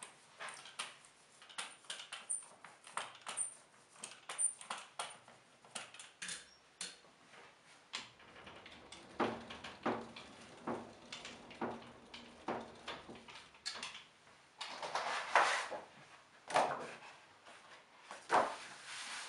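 Letterpress printing with wood type on an FTC press: many small clicks and knocks of wood and metal parts, a spell of fairly regular knocks in the middle, and three louder sweeping noises near the end.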